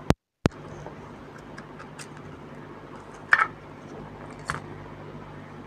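Scattered light clicks and taps from handling the opened plastic case and metal-shielded circuit board of a small switch-mode power supply, the loudest about three seconds in, over a steady low hum. Just after the start, two sharp clicks bracket a brief dropout.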